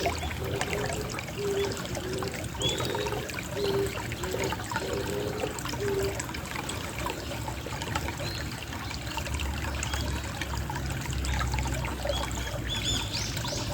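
Gentle trickling of running water. A pigeon coos in a low, repeated phrase through the first six seconds, and small birds chirp faintly.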